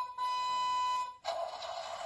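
John Deere Kids light-and-sound toy tractor's small speaker playing an electronic sound effect: a steady beeping tone, briefly broken near the start, that gives way after about a second to a buzzy electronic engine noise.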